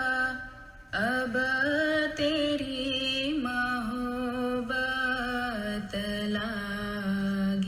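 A ginan, an Ismaili devotional hymn, sung slowly by a solo voice. It holds long notes that slide between pitches, with a short pause for breath about a second in.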